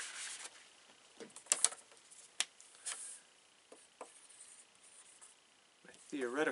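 Quiet handling noises on a table: a few light, sharp clicks and taps with faint rubbing between them.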